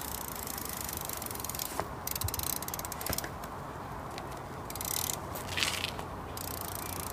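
BMX bike's rear hub ratcheting as it coasts, a rapid clicking that comes in spells over a steady outdoor noise.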